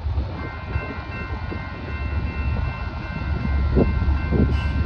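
Union Pacific diesel locomotive approaching under power: a steady low engine rumble that grows slightly louder, with a steady high-pitched whine of several tones over it.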